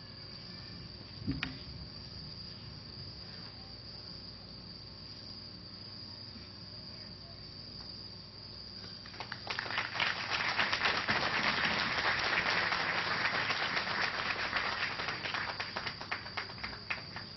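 Crickets chirring steadily. About nine seconds in, an audience breaks into applause that lasts several seconds and thins to a few scattered claps near the end. A single knock comes about a second in.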